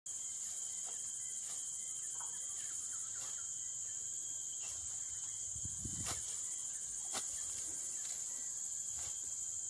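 Steady high-pitched insect chorus, with scattered light clicks and rustles of grass as a young orangutan grabs and pulls at vegetation, the loudest rustle about six seconds in.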